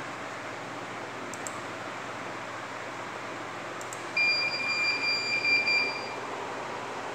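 Electronic buzzer of a CCTV DVR giving one steady, high-pitched beep about two seconds long, starting about four seconds in. Under it runs a steady fan-like hiss.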